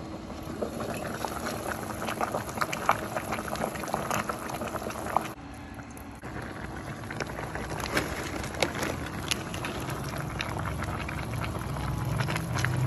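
Pot of water boiling hard on a stovetop: a dense bubbling crackle with many small pops. A faint steady hum runs under it for the first five seconds.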